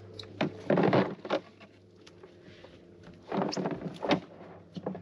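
Cast net being shaken out over a plastic bucket on a boat deck: its weights and the flapping baitfish clatter in two bursts, about a second in and again past three seconds, over a faint steady hum.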